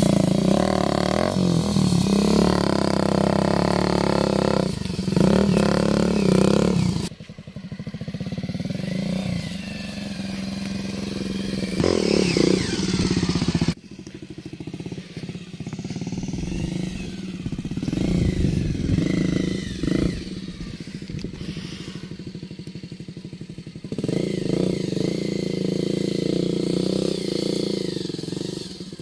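Bajaj Avenger motorcycle's single-cylinder engine running and being ridden over rough ground, the engine note rising and falling with the throttle. The sound changes abruptly about 7, 14 and 24 seconds in, where separate clips are joined.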